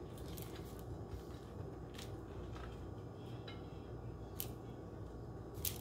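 Faint crackles of crisp fried corn tortillas and shredded lettuce being handled as lettuce is tucked into quesadillas, a few sharp clicks over a steady low hum.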